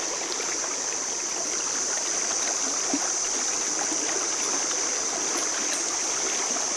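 Shallow, fast river riffle rushing steadily over stones, heard close to the water surface, with an even high hiss.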